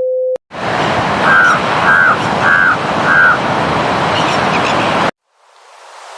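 A brief steady beep, then a loud steady rushing noise like surf or wind. Over it come four short, evenly spaced calls from an animal, probably a bird. The noise cuts off suddenly about five seconds in, and a fainter hiss fades in near the end.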